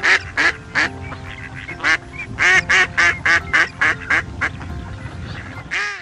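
A flock of white domestic geese honking: a quick run of short, nasal calls, a lull, then another fast series and a single call near the end.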